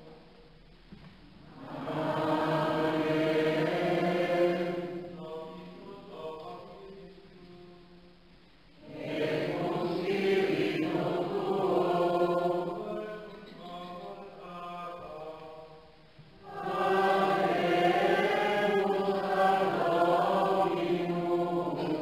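Latin Gregorian plainchant sung by a choir in three louder phrases, starting about 2 s, 9 s and 16 s in, with quieter stretches between them.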